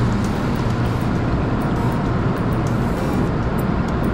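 Water spraying onto a car inside an automatic car wash tunnel, a steady rushing noise with scattered drip ticks.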